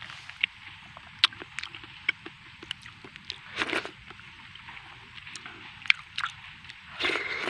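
Close-up chewing and mouth noises: irregular wet clicks and smacks of someone eating, with two short breathy rustles partway through and near the end.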